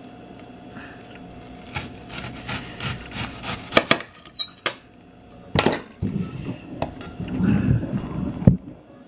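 A kitchen knife slicing through a red onion on a ceramic plate: crisp cutting ticks through the layers and several sharp clinks as the blade meets the plate.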